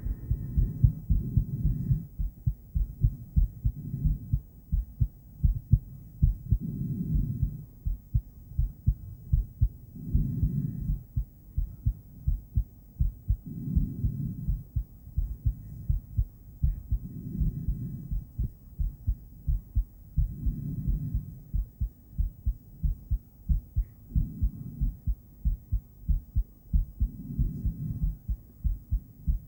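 A woman's heartbeat picked up through an ultrasonic heartbeat device: a steady run of short, low pulses, several a second. A louder low swell comes and goes about every three and a half seconds.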